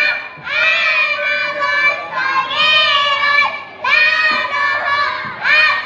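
A choir of kindergarten children singing together in a hall, in sung phrases of one and a half to two seconds with short breaks between them.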